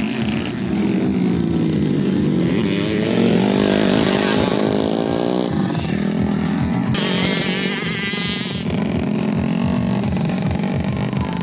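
Several dirt-track racing motorcycles running on the circuit, their engines revving up and down as they ride past. About seven seconds in, one engine is heard with a sharper, higher buzz for a second or two.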